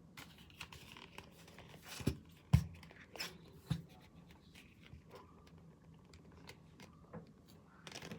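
Objects being handled in a small room: rustling and crinkling with a few sharp knocks between two and four seconds in. The loudest knock comes about two and a half seconds in.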